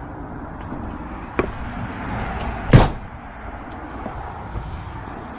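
A single sharp knock a little over halfway through, with a fainter click earlier, over a steady outdoor hiss.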